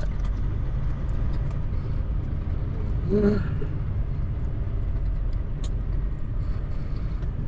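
Semi-truck's diesel engine running as a steady low rumble inside the cab while the truck rolls slowly. About three seconds in there is a brief pitched sound.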